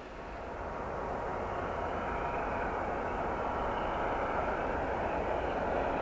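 Class 241 'Ludmilla' diesel locomotive working hard under a heavy load, its engine noise growing louder over the first two seconds as it comes closer, then holding steady.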